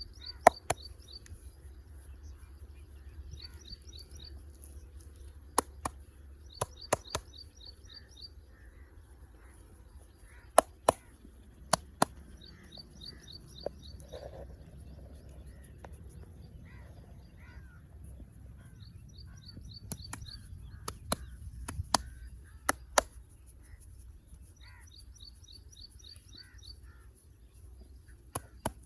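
Sharp slaps and claps of a barber's hands during a traditional head and shoulder massage, coming in scattered pairs and small clusters. Between them a small bird repeats a short rattling trill every few seconds.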